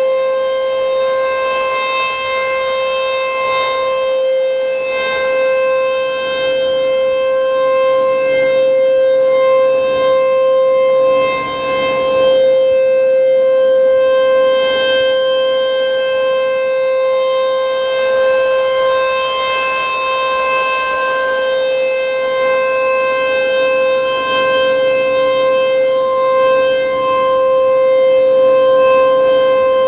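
American Signal T-128 tornado siren sounding a steady alert tone for its monthly test: one held pitch with strong overtones, swelling and dipping slightly in loudness, with a brief dip about 11 seconds in.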